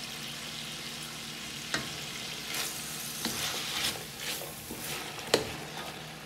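Julienned carrots and chayote frying in a large pan with a steady sizzle while a wooden spatula stirs and tosses them. The stirring brings scraping rustles and two sharp knocks of the spatula against the pan, the louder one near the end.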